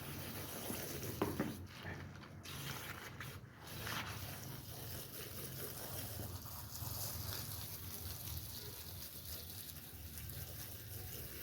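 Wet washing noises from a wool rug being cleaned: water and foam swishing and scrubbing, with a brief louder knock about a second in.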